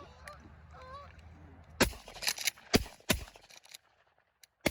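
Canada geese honking, then a quick volley of about four shotgun blasts from the hunters firing on the flock, starting about two seconds in.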